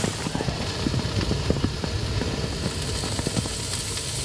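Rain falling on a lavvu tent's flysheet: a dense spread of small irregular drop ticks over a steady hiss and a low rumble.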